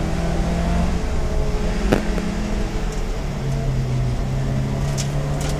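Mazda MX-5 Cup race car's four-cylinder engine running steadily under load on track, heard from the onboard camera. Its note drops about three and a half seconds in and picks back up under a second later. Two sharp clicks come through, one about two seconds in and one near the end.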